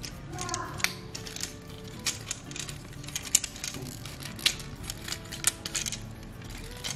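Plastic parts and joints of an Optimus Prime Transformers figure clicking and snapping as they are handled and folded: an irregular run of sharp clicks, several a second.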